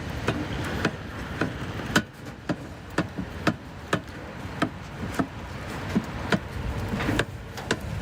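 Metal spatula striking and scraping a wok while stir-frying fried rice, a clank about twice a second over a steady background hiss.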